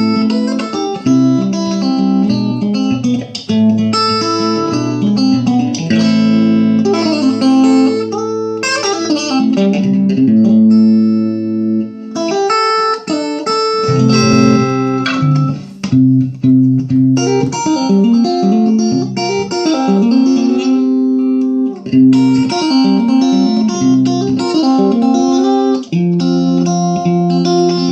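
Electric guitar played through a 6V6-powered, 20-watt 1x12 tube combo amplifier: a run of single notes and chords, with short pauses about halfway through and again a few seconds later.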